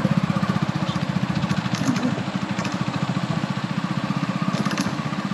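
Splendor motorcycle's single-cylinder four-stroke engine running at a steady pace while the bike is ridden, its exhaust beat quick and even, picked up close by from the fuel tank.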